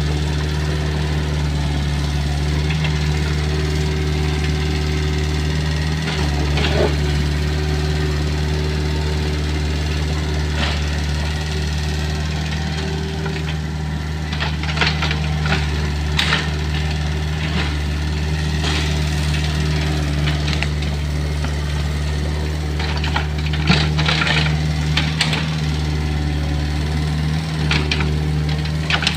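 Kobelco mini excavator's diesel engine running steadily as it works, with scattered sharp cracks and knocks, mostly in the second half, as the bucket works through palm fronds and woody debris.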